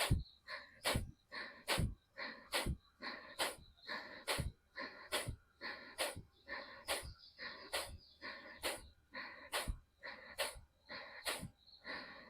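Kapalbhati pranayama breathing: forceful exhalations through the nose, each driven by a sharp pull-in of the belly, in a rapid, even rhythm of about two a second.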